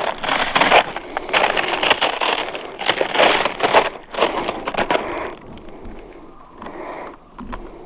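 Footsteps crunching over loose, fresh lava rubble: a run of irregular steps that stops about five seconds in. A steady high insect trill carries on underneath.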